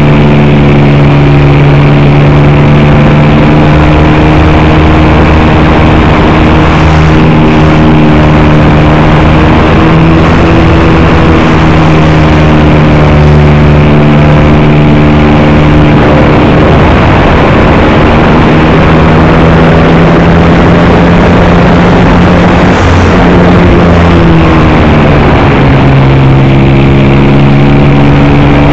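Motor and propeller of a radio-controlled model Cessna, heard from the onboard camera: a loud, steady buzzing drone over a rushing noise. Its pitch shifts a little with the throttle, dipping and rising again about three-quarters of the way through.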